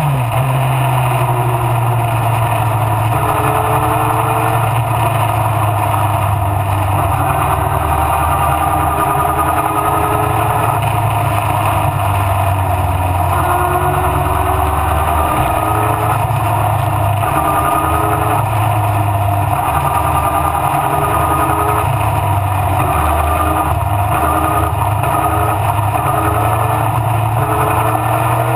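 Mallock Mk8B sports racing car's engine running hard at racing speed, its note climbing in pitch and dropping back several times.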